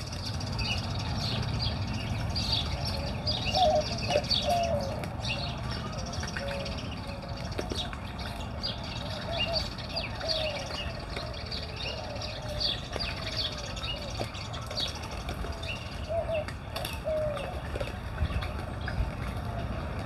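Several birds chirping and calling: many short high chirps, along with repeated lower, curving calls scattered through the whole stretch, over a steady low background hiss.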